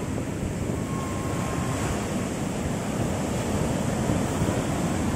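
Sea waves washing onto the beach, a steady rushing surf, with wind buffeting the microphone.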